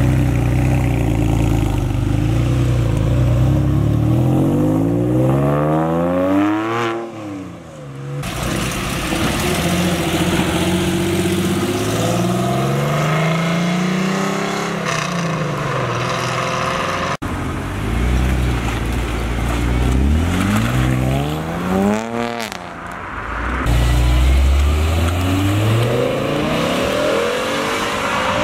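Several sports cars, one after another, each accelerating hard away with its engine revs climbing and dropping through the gear changes, in short clips cut together. It opens with a Porsche 911's flat-six pulling away, and later an open Cobra-style roadster passes.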